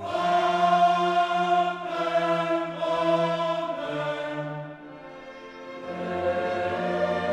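Orchestral music with a choir singing long held chords that change every second or so. It drops quieter briefly about five seconds in.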